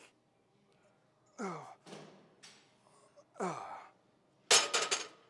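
A man's short, falling exhaled grunts of effort, one with each overhead barbell press, about two seconds apart. About four and a half seconds in, a loud metallic clank with a brief ring as the steel barbell is set back onto the rack's hooks.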